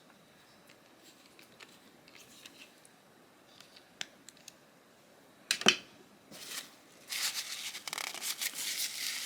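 Small metal clicks and taps from a folding knife's pivot screw being fitted with a driver, with one sharp click about five and a half seconds in. From about seven seconds a quick run of scratchy clicking follows.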